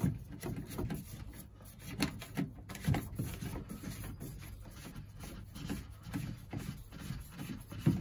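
Plumbing pipework and fittings being handled and offered up into place: irregular knocks, scrapes and rubbing, with a few sharper clicks.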